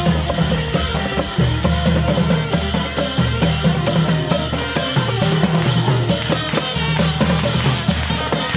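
Music with a busy drum beat: drum kit and percussion carry the rhythm under pitched instruments, loud and unbroken.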